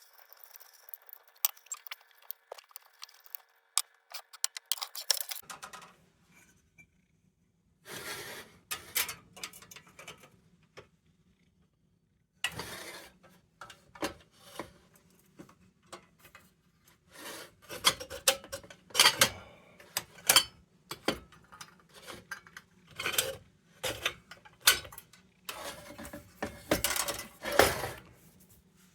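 A 1930 Dietz No. 2 Blizzard lantern being handled and put back together: irregular clinks and rattles of sheet metal and glass, with some rubbing, broken by a couple of short pauses.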